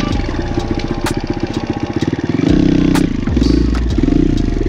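Kawasaki KLX140 dirt bike with a 170cc big-bore kit and BBR D3 exhaust, its single-cylinder four-stroke engine revving up and down repeatedly under throttle while riding, with a few sharp knocks.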